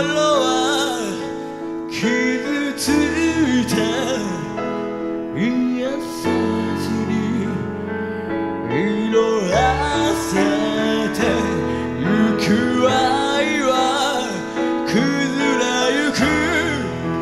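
Live rock band music: a male lead vocalist sings a slow melody into a handheld microphone over held chords and a bass line that changes note every few seconds.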